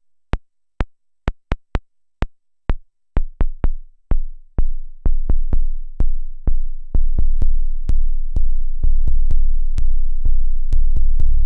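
Noise Engineering Tymp Legio Eurorack drum module in boot mode, triggered in a quick, uneven pattern while its knobs are turned. The hits start as short clicks, then turn into deep kick drums whose tails grow longer until they run together into a steady low sub bass.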